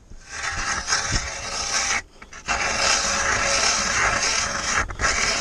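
Hand-cranked ice auger boring through lake ice: a steady, rasping scrape of the blades shaving ice as the crank turns. It stops for about half a second around two seconds in and dips briefly near the end.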